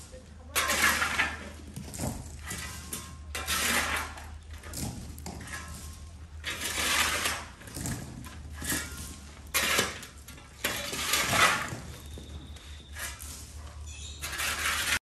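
Kitchen clatter: pots, dishes and utensils knocking and scraping in irregular bursts, over a low steady hum.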